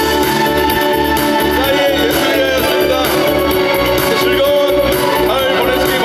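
Pop backing track with a steady beat, played loud through a concert PA system.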